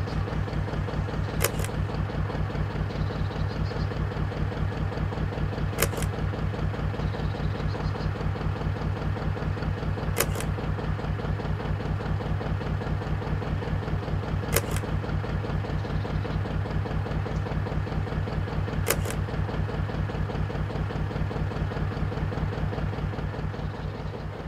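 Narrowboat's Petter McLaren B2 traditional diesel engine idling with a steady, even beat, with a sharp click about every four seconds.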